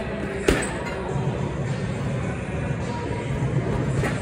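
A boxing-gloved punch lands hard on a hanging heavy bag about half a second in, with a lighter hit near the end, over a steady low background hum.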